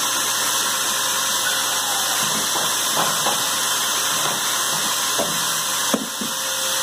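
Vacuum cleaner running steadily as its brush nozzle is drawn along the frets of a Stratocaster neck, sucking up the metal filings left from fret levelling. There are a few light knocks and taps as the nozzle bumps the neck.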